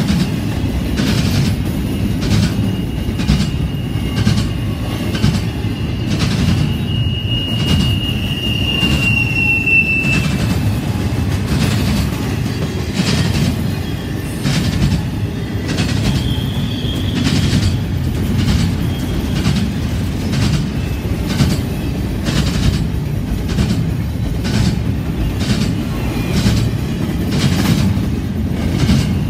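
Double-stack intermodal train's well cars rolling past with a steady rumble and regular clicking of wheels over the rail joints. A thin, high wheel squeal comes in about a second in and fades out about ten seconds in.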